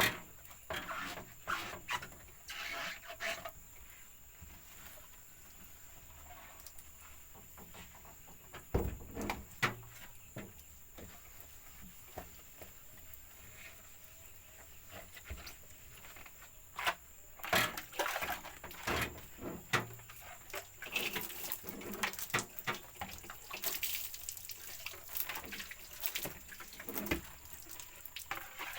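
Splashing water and irregular knocks and clatter from washing out an old refrigerator, busier in the second half, over a faint steady high-pitched whine.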